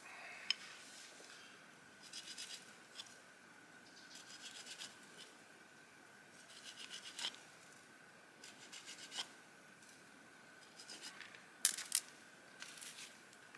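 A knife blade scraping and whittling a long wooden drill shaft, in about six short bursts of quick strokes, each ending in a sharp click.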